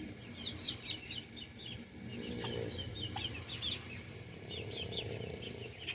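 Turkeys calling: a run of quick, high-pitched chirping peeps repeated again and again in short bunches.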